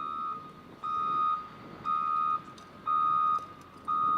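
Electronic warning beeper sounding a steady single-pitched beep, each about half a second long, about once a second, of the kind a vehicle reversing alarm makes. Low background noise runs underneath.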